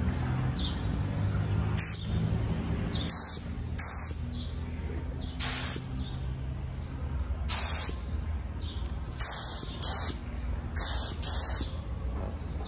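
Gravity-feed paint spray gun hissing in about nine short bursts of compressed air and atomised primer, each a fraction of a second long, as the trigger is pulled for test sprays to check the fan pattern and flow setting.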